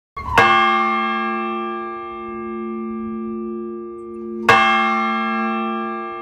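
A large church bell struck twice, about four seconds apart, each stroke ringing on in a long, slowly pulsing hum.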